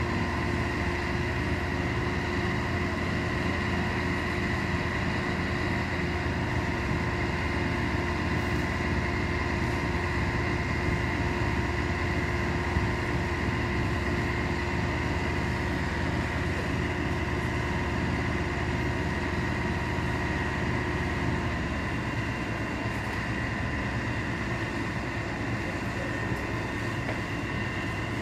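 Fire engine's engine running steadily with a low drone and several held whining tones. One of the tones stops about three-quarters of the way through, and the low hum eases a little.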